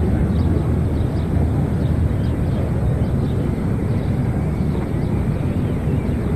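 Steady low rumble of outdoor ambience at an open-air show-jumping arena, with faint short high chirps recurring throughout.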